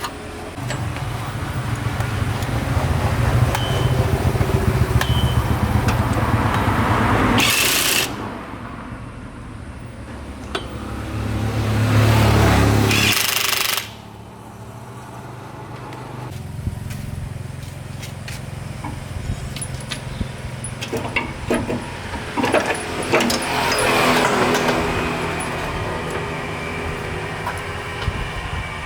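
A motor running with a steady low pulsing throb, with two loud rushes of noise: a short one about seven seconds in and a longer, rising one around twelve seconds in.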